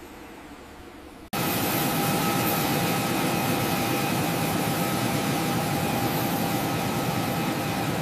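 Jet airliner turbine noise: a steady whine of several tones over a loud, even rush of air. It cuts in suddenly about a second in, after faint quiet background.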